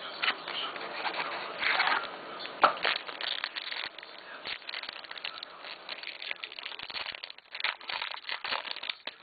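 Foil wrapper around a stack of trading cards being torn open and crinkled by hand, a dense run of crackles and rustles with the sharpest crack a little under three seconds in.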